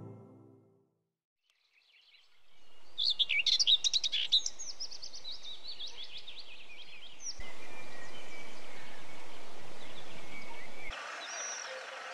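Birds chirping and singing over a steady outdoor background noise. The ambience fades in after a moment of silence and changes abruptly twice: to a louder, even noise partway through, then to a quieter background with more chirps near the end.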